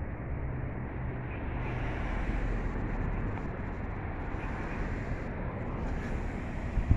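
Steady city street ambience: an even, low rumble of traffic with no single vehicle standing out.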